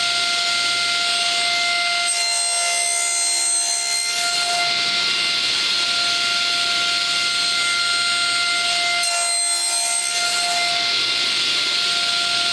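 Table saw with a 10-inch blade running at full speed with a steady whine, cutting through a pallet-wood board from about two seconds in until about nine or ten seconds in.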